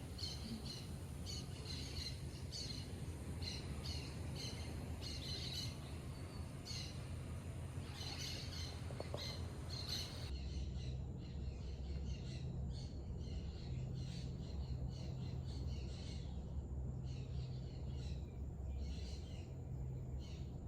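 Birds chirping over and over, short calls again and again, over a steady low hum. The background changes abruptly about ten seconds in, and the chirping carries on.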